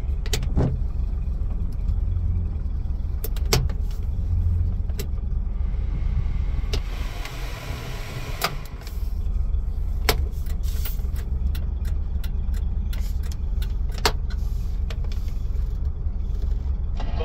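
Toyota FJ40 Land Cruiser's straight-six petrol engine idling steadily, heard from inside the cab, with a brief dip in level about halfway through. Several sharp clicks come over it.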